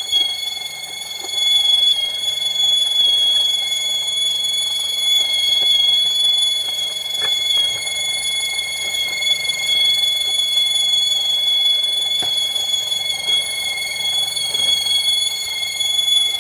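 Steady high-pitched whistle from a Nissan Rogue's engine compartment, holding one pitch with several higher overtones and no rise or fall. The owner traces it to a spot where air blows out, which points to an air leak.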